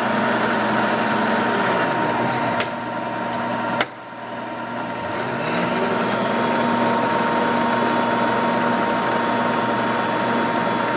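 Servo power table feed motor on a knee milling machine driving the table, its whine rising in pitch as it speeds up to rapid traverse. The whine winds down and cuts off with a click about four seconds in, then rises again and holds from about five seconds, over a steady machine hum.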